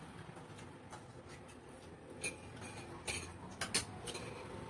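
Light clicks and clinks of eating at the table: a spoon against a plate and seafood shells being handled, with four sharper clicks in the second half.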